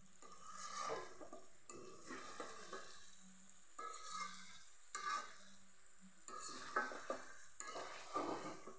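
Metal spatula stirring and scraping chicken and potato curry around a large metal karahi, with a stroke about every second and the odd click of metal on metal, over the sizzle of the curry frying in oil.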